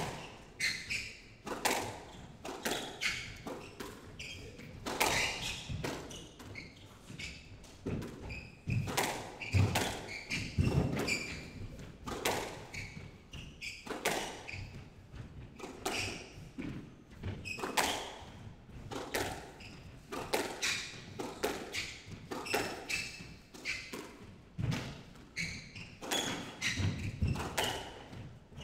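Squash rally: rackets striking the ball and the ball smacking off the court walls in a steady back-and-forth of sharp hits, echoing in the hall. Between the hits come short squeaks of shoes on the wooden court floor.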